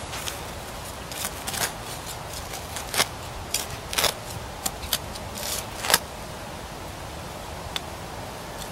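Metal hand trowel digging into soil full of stones and rubble, its blade scraping and clinking against the grit in a run of short scrapes and sharp clicks, the loudest about three, four and six seconds in.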